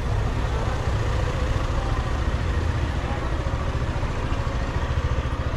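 Steady low rumble of a motor vehicle engine running close by, with faint voices in the street.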